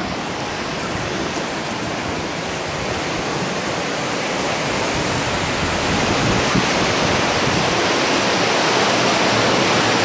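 Rushing white water in a river rapids ride channel, churning around the raft: a steady rush that grows gradually louder.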